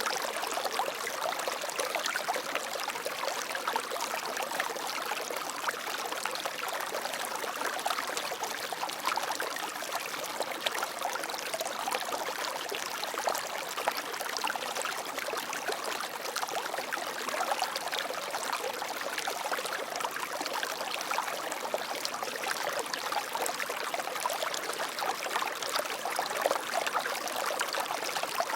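Water flowing steadily over stones in a small stream, a continuous splashing and trickling with no pauses.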